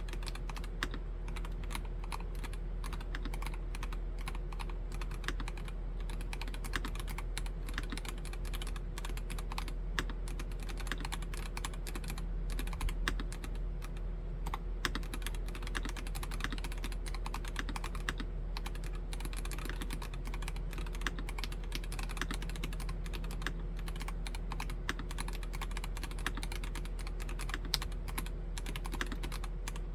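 Continuous typing on a Nori Spring Rider mechanical keyboard fitted with Gateron Yellow Pro V2 linear switches: a fast, unbroken run of keystrokes with no pauses.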